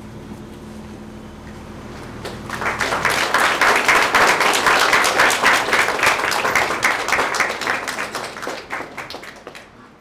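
Audience applauding: the clapping breaks out about two seconds in, swells to a peak and then thins out and fades near the end. A low steady hum lies underneath before it starts.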